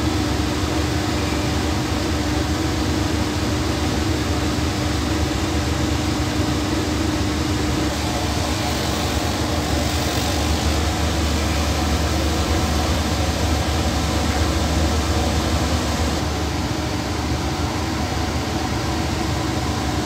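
Jeanologia laser denim-finishing machine running while it engraves a design into denim: a steady mechanical hum with a held tone over an even rush of machine noise.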